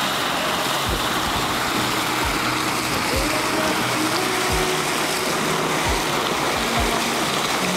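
Geothermal hot spring boiling and spurting up from the rock, a dense steady hiss of water and steam with irregular low thumps about once a second.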